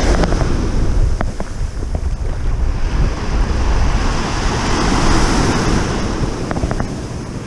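Small waves breaking and washing up the sand at the water's edge, with wind buffeting the microphone as a low rumble underneath.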